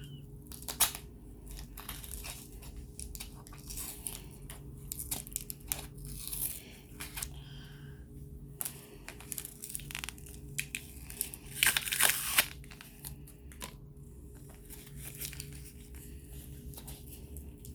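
Tape tearing and packaging crinkling as hands work at a taped-shut box, in scattered short rips and rustles with a louder stretch of tearing about two-thirds of the way through.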